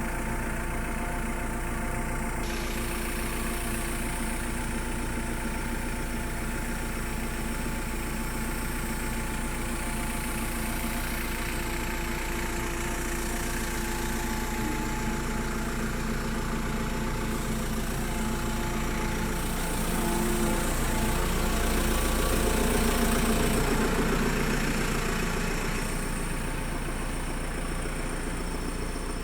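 JCB 3CX backhoe loader's diesel engine running steadily, swelling louder for a few seconds about two-thirds of the way through.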